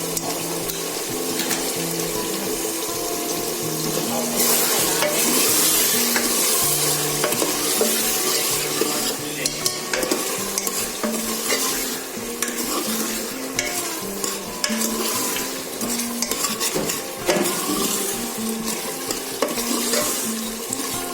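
Mutton masala sizzling as it is stirred and fried in the pot, a spoon scraping and knocking against the metal; this is the bhuna frying stage of the curry. The sizzle grows louder about four seconds in.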